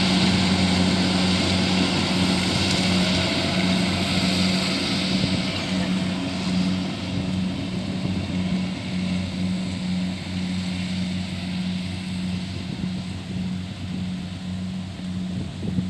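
Kubota DC70 combine harvester's diesel engine running at steady working speed with a constant low drone, the machine's hiss easing off and the sound gradually fading after about five seconds.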